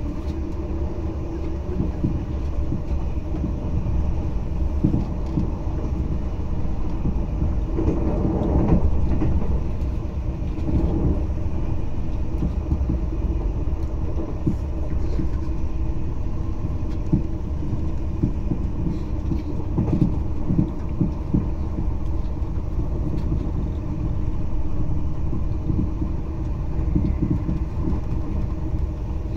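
TGV high-speed train heard from inside the passenger car while running along the line: a steady low rumble of wheels on rail with a constant hum, swelling briefly about eight seconds in.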